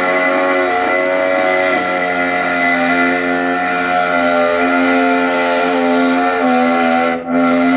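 Engine running at steady high revs after revving up, its pitch holding level, with a brief drop about seven seconds in.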